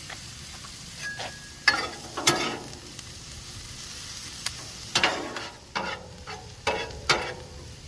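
Chopped onions and butter sizzling in bacon grease on a flat-top griddle, with a metal spatula scraping and tapping the griddle several times as the onions are turned.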